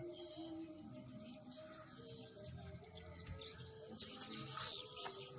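A colony of swiftlets twittering inside a swiftlet house: dense, high-pitched chirping that swells noticeably louder about four seconds in.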